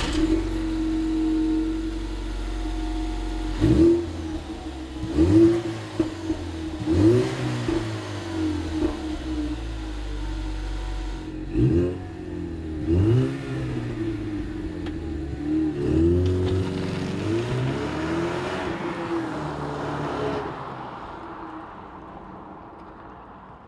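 Ford Mustang EcoBoost's turbocharged 2.3-litre four-cylinder on its factory exhaust: idling steadily, then revved in a series of short blips that rise and fall. Near the end the car drives off and the sound fades.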